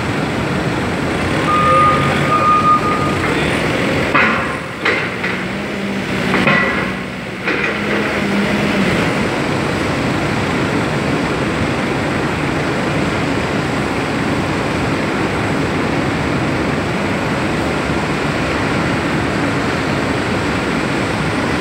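Steady, loud industrial machine noise. A short steady tone sounds about two seconds in, and the level dips and shifts a few times between about four and eight seconds.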